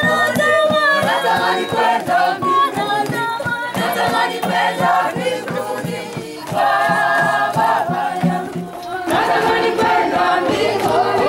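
A group of voices singing a song together over a steady rhythmic beat, breaking briefly between phrases.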